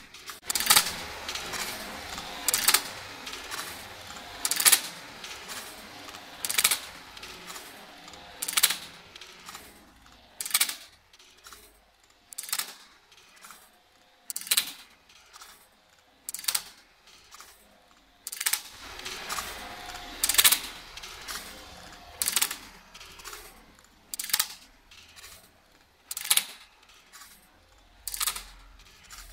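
Gear-and-lever machine mechanism running in a steady cycle: a sharp metallic clack about every two seconds, with lighter clicks and rattles between.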